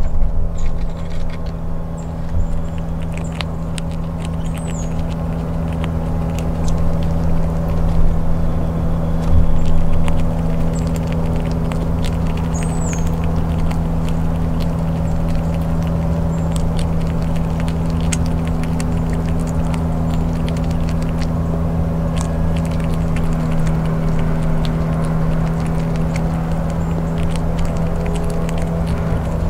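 Steady low mechanical hum at several fixed pitches, with a grey squirrel's teeth making rapid small clicks as it gnaws and cracks peanuts.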